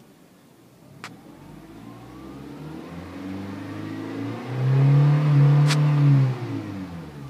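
Honda CR-Z's 1.5-litre four-cylinder engine and exhaust revving, its note climbing and swelling for several seconds, holding loudest for about two seconds, then dropping away. A sharp click about a second in and another near the loudest point.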